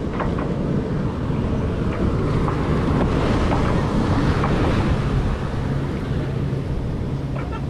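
Wind buffeting the microphone and water washing along a sailboat's hull as it motors along, with a faint steady low hum underneath.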